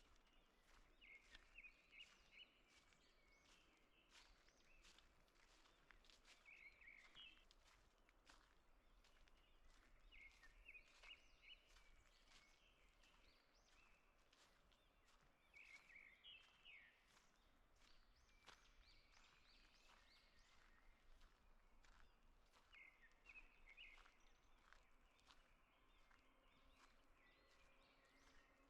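Faint birdsong in a forest: a songbird repeating a short chirping phrase about every five or six seconds, over soft ticks and crackles such as footsteps on a forest path.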